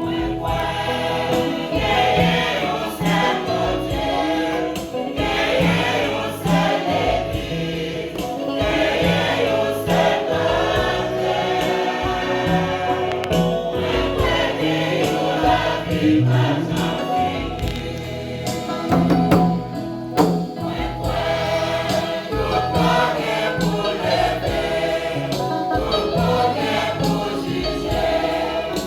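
Church choir singing a gospel-style hymn over a bass line and a steady beat.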